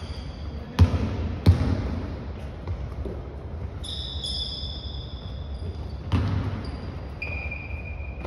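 Basketball bouncing on a hardwood gym floor: three sharp thuds, two about a second in and one near six seconds, each with a short echo. High brief squeaks of sneakers on the court come in between.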